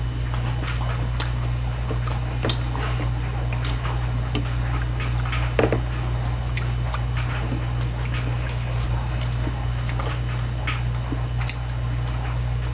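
Chewing and eating at close range: irregular small clicks and crunches of someone eating tangsuyuk (battered fried pork), over a steady low hum.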